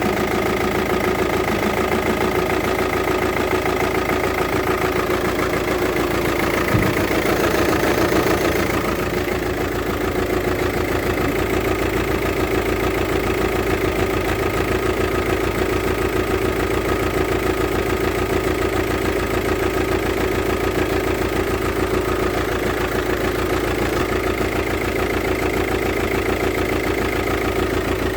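VW Touran 2.0 TDI four-cylinder diesel engine idling steadily with a defective fuel injector, with a single sharp click about seven seconds in.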